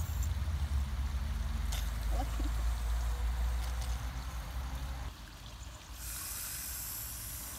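A low rumble, then from about six seconds in a steady hiss from an aerosol can of shaving foam as foam is sprayed into a bowl.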